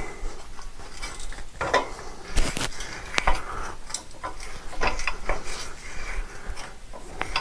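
Scattered metal clinks and knocks from a steel masonry prop being handled and adjusted, its inner tube stiff in the outer tube because the fresh paint is still on it.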